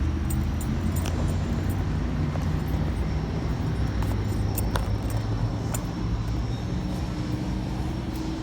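Steady low hum of a car engine running, with a few light clicks over it.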